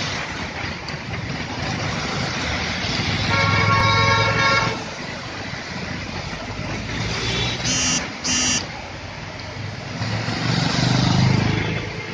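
Road traffic driving through a flooded street, with a steady hiss of rain and tyres splashing through standing water and engines swelling as vehicles pass. A vehicle horn sounds for about a second and a half around four seconds in, and two short horn toots come about eight seconds in.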